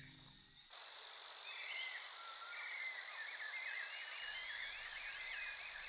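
Tropical forest ambience that cuts in under a second in: a chorus of many overlapping chirping animal calls over a steady high drone.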